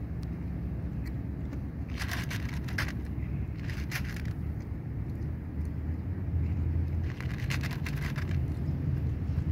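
A cat crunching dry kibble, heard as three spells of short crackly chewing clicks, over a steady low rumble.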